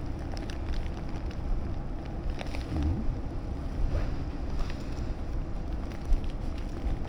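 Wind buffeting the microphone: a steady low rumble with a few faint clicks and rustles over it.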